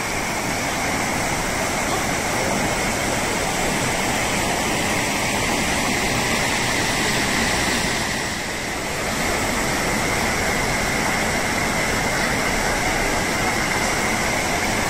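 Small rocky forest stream babbling over stones: a steady wash of running water, briefly a little softer about eight seconds in.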